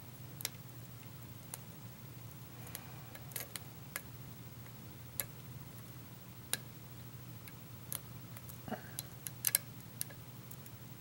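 Small, irregular metallic clicks and ticks of a lock pick and tension wrench working the pin stack of a pin-tumbler lock, with a cluster of louder clicks near the end, over a steady low hum.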